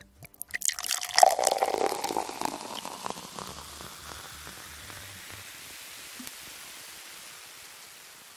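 Water rushing: a few clicks, then a sudden loud rush about a second in that slowly fades into a steady hiss.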